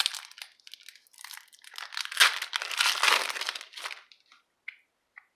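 Crinkling and tearing of a trading-card pack wrapper being opened, loudest about two seconds in, then fading to a few light ticks near the end.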